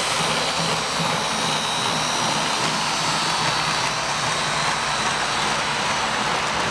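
Steady whirring rumble of model trains running on a model railroad layout, with a faint low hum.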